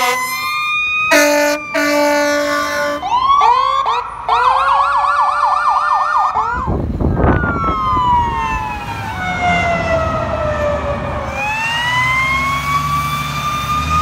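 Fire apparatus sirens: short steady horn blasts in the first few seconds, then a fast yelp siren. After a cut, a wail siren slowly winds down and then climbs again, with a truck engine rumbling under it near the end.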